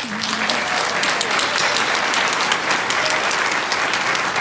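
Audience applauding, swelling at the start and then holding steady.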